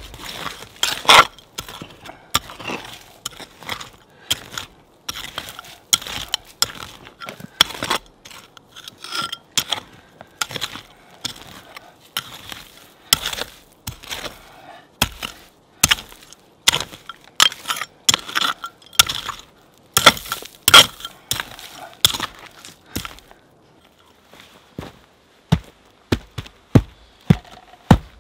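Stones clinking and knocking together as they are set in place, and a small hand tool scraping and chopping into soil in quick, irregular strokes. The strokes thin out to a few single sharp knocks near the end.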